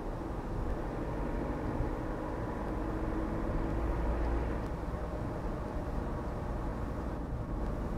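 Steady engine and tyre-on-road noise heard inside a car being driven through a bend.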